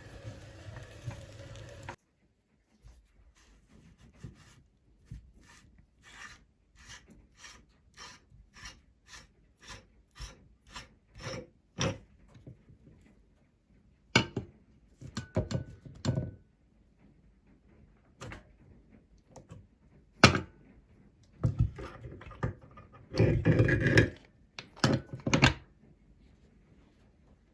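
Meat grinder at work: a short grinding noise, then regular clicks about twice a second as it turns. These give way to louder knocks and scraping of hard parts.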